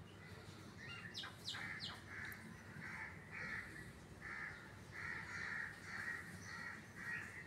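A bird calling over and over in short calls, about two a second, after a few quick high chirps about a second in.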